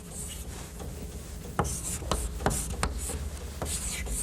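Writing strokes on a board: a run of sharp taps and short scratchy scrapes as a name is written out.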